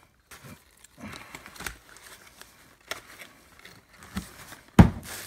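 Faint rustling and light clicks of a small cardboard box and paper insert being handled, then one sharp knock near the end.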